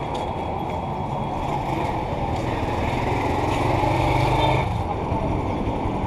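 Steady motor-vehicle engine and traffic noise: a low engine hum that holds steady under a rough rushing haze.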